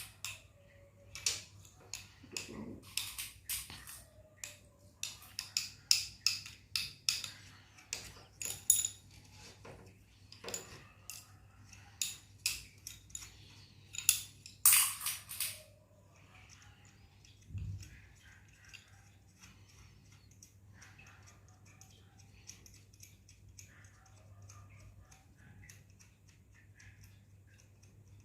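Metal wet-grinder parts clinking and clicking as they are handled and fitted together: a quick run of sharp clinks for about the first fifteen seconds, then sparser and fainter ones, over a low steady hum.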